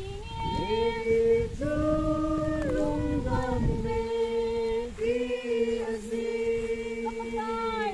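A small group of unaccompanied voices singing a hymn together in long, held notes that change pitch every second or so.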